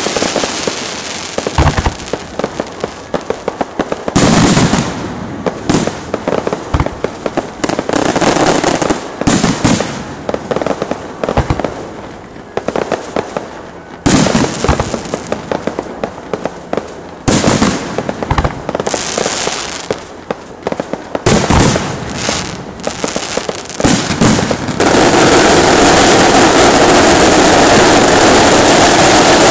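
Electronically fired fireworks: irregular volleys of sharp bangs and crackling with short lulls between, then, about five seconds before the end, a dense unbroken crackle like a long firecracker string going off.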